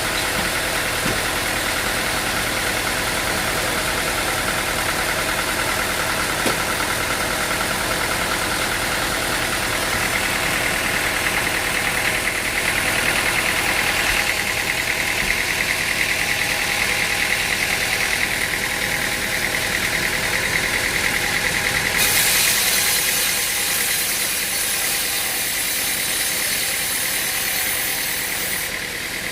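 An engine-driven machine running steadily. A higher-pitched whine comes in about a third of the way through, and a loud hiss joins it from about three-quarters of the way through until just before the end.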